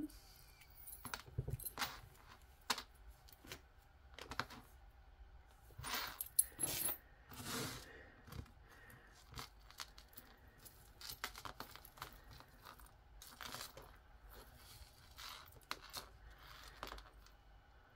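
Thin metal necklace chains clinking and rustling faintly as they are handled and untangled on a tabletop, in a run of small irregular clicks and jingles, a little louder for a moment near the middle.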